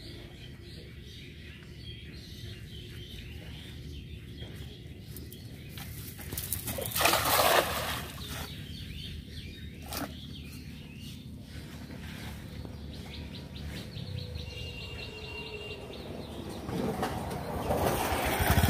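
A cast net thrown out and landing on pond water about seven seconds in: a loud rushing splash lasting about a second. Quieter water and rope noise swells near the end as the net is hauled back in.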